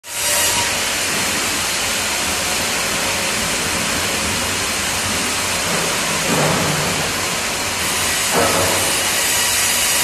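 Tandem band sawmill and its log carriage running: a loud, steady hiss-like machine noise, with two brief louder swells about six and eight seconds in.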